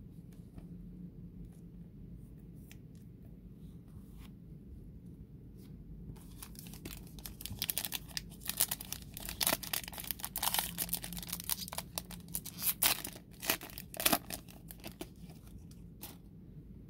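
Foil wrapper of a 2022 Panini Select UFC trading-card pack being torn open by hand, crinkling and tearing. A few faint handling clicks come first; the tearing starts about six seconds in, grows loudest in a string of sharp rips, and stops a couple of seconds before the end.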